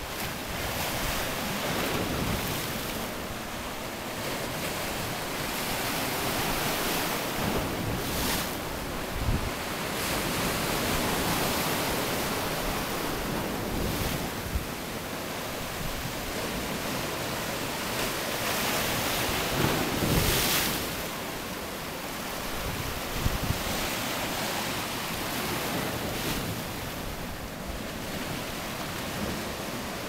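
Sea surf breaking and washing over a rocky shore: a continuous rush of waves that swells and eases every few seconds. Wind buffets the microphone at times, loudest near 8 s and 20 s in.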